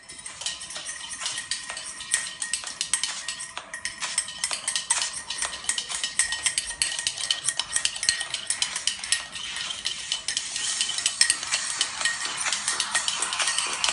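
Fast, dense metal clinking and rattling of a spoon stirred hard in a cup and a metal cocktail shaker being shaken to mix a drink. The clinks get busier in the second half.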